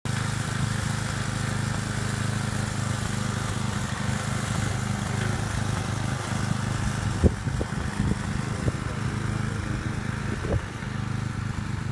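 A small engine running steadily, with a few sharp knocks over it in the second half.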